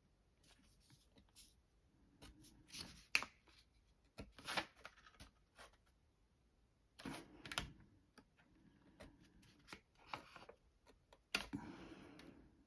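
Faint scratches and clicks of a sharp hobby knife cutting masking tape around a plastic masking template, with a longer scraping stretch near the end.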